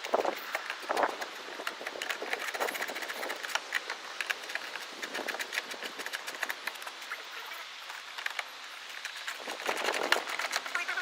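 Scattered light clicks and taps at an irregular pace, with a few brief rustling bursts near the start, about a second in, around five seconds and near the end.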